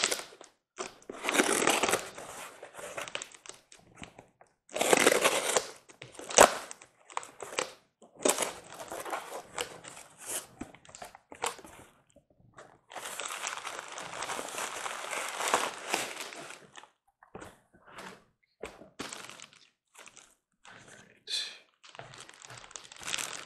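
Cardboard shipping box being opened by hand: long ripping and scraping stretches as the tape and flaps are torn and pulled back, with a sharp click partway through. The sounds then turn sparser, with plastic bag wrapping crinkling as the inner box is handled near the end.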